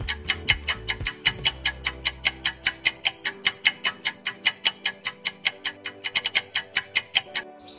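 Countdown-timer sound effect: fast, even clock-like ticking, about five ticks a second, over soft background music. The ticking stops shortly before the end.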